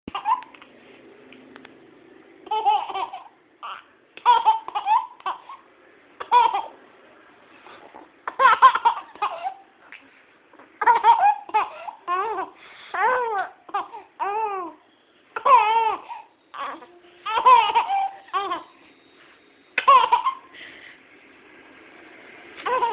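Baby laughing in short high-pitched bouts, over a dozen of them, with brief pauses between.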